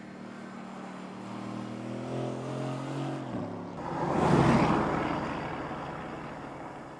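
Mercedes-AMG GT's twin-turbo V8 accelerating, its note climbing slowly for about three seconds and then dipping. The car then passes close by, loudest at about four and a half seconds, and fades as it drives away.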